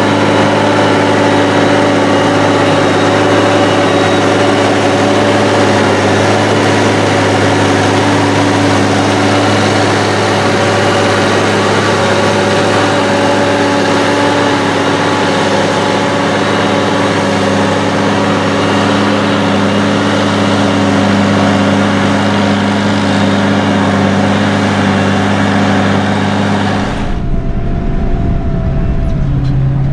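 SAME Titan 190 tractor's six-cylinder diesel engine running steadily under load, pulling a two-furrow plough through the ground. Near the end the sound turns deeper and duller, as heard from inside the tractor's cab.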